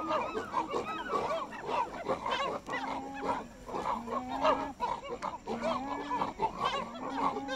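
Chimpanzees grunting and calling: many short, overlapping calls that bend in pitch, with a lower drawn-out call repeating about every second and a half.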